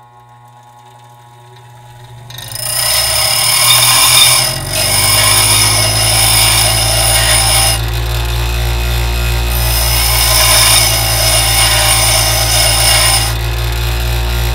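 Bench grinder motor spinning up with a rising hum. A small steel spade bit is then ground against the fine-grit stone, a loud grinding hiss that eases briefly about 8 s in and again near the end.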